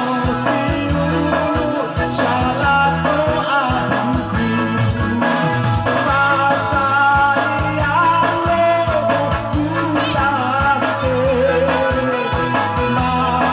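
A man singing through a microphone and loudspeakers to electronic keyboard accompaniment with a steady beat and bass line. His voice glides between held notes.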